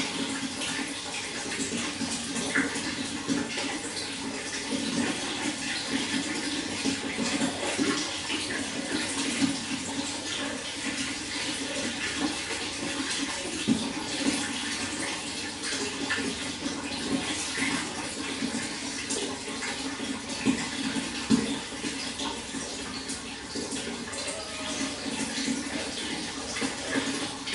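Running water: a steady, even rushing splash, with brief louder splashes now and then.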